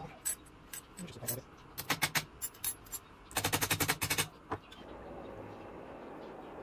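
Claw hammer striking metal draw-latch brackets on a metal plate to flatten them. Separate sharp metallic blows, then a fast run of rapid blows about three and a half seconds in, and one last blow just after.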